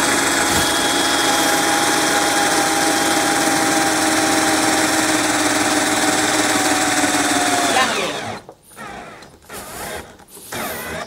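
Black & Decker cordless drill running steadily at full speed, drilling into a square steel tube, its pitch sagging slightly before it stops about eight seconds in; a few short, quieter sounds follow. The drill's six-year-old batteries are, by the owner's account, dead.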